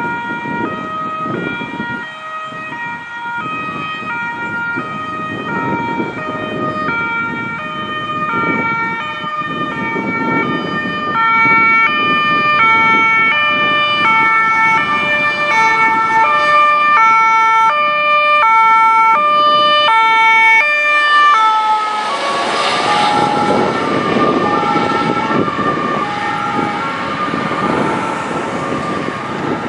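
Ambulance two-tone siren (German Martinshorn), alternating between two pitches as the vehicle approaches and grows louder. About 21 seconds in, the pitch drops as it passes, and the siren carries on lower over engine and tyre noise as it drives away.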